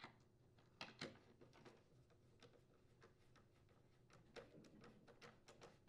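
Faint, irregular clicks and taps of a screwdriver turning a screw into a chainsaw's plastic housing, coming thicker near the end.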